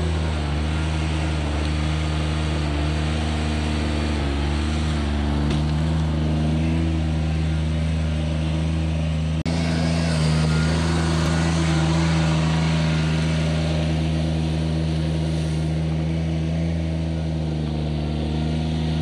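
John Deere 755 compact tractor's three-cylinder diesel engine running steadily at a constant engine speed, towing a land plane. A short sharp break interrupts it about nine seconds in.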